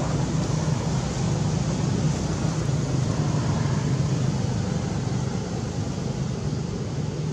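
Steady outdoor background noise: a low rumble with a hiss over it, even in level, with no distinct calls or knocks.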